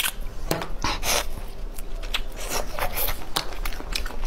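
Sucking and slurping at a cooked crayfish held to the mouth, with short irregular rubbing and scraping from disposable plastic gloves and shells. Near the end, a gloved hand rustles as it reaches for another crayfish.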